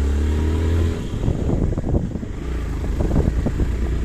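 Motorcycle engine running while riding a rough dirt track, its note rising slightly in the first second. From about a second in, choppy, gusty noise from wind on the microphone partly covers the engine.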